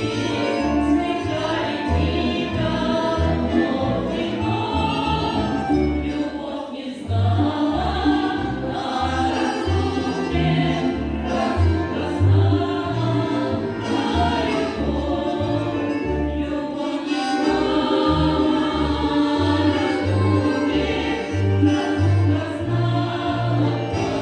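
Women's folk choir singing a Russian folk song to accordion accompaniment, the accordion's bass notes marking a steady beat beneath the voices.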